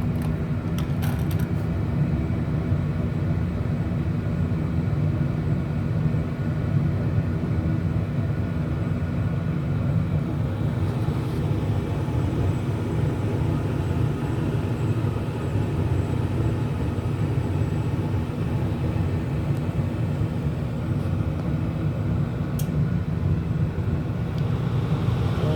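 Carrier Weathermaker gas furnace running with its burners lit and inducer motor going: a steady low rumble with a faint hum over it, and a faint click about a second in and another near the end.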